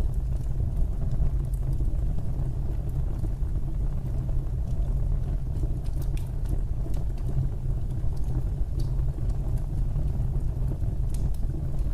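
Fire burning in a fireplace: a steady low roar with scattered small crackles and pops.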